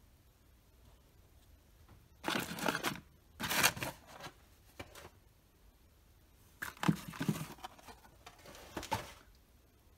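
Tea boxes and packets being handled and shifted on a cabinet shelf: four short bursts of packaging and cardboard handling noise, about two seconds in, just before four seconds, around seven and around nine seconds.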